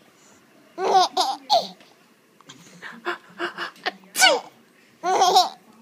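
Baby laughing in four short bouts of high-pitched giggles, the loudest a falling squeal about four seconds in.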